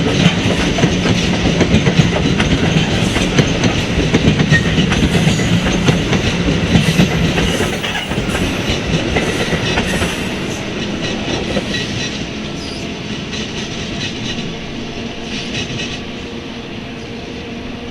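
New Jersey Transit locomotive-hauled commuter train passing, wheels clicking over rail joints with a steady low engine tone. The sound fades gradually from about halfway through as the train moves away.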